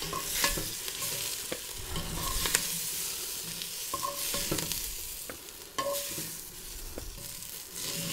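Onions sizzling as they fry in clarified butter in a cast-iron Dutch oven, being stirred with a turner. There are repeated clicks and scrapes as the turner meets the pot.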